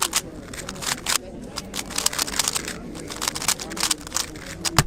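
Rapid, irregular clicking and clacking of a 3x3 speedcube being turned fast in a solve, with faint voices behind.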